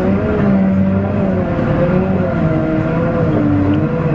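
Cat 950M wheel loader's diesel engine and hydraulics working under load, heard from inside the cab. A steady low rumble runs under several whining tones that rise and fall as the bucket is raised.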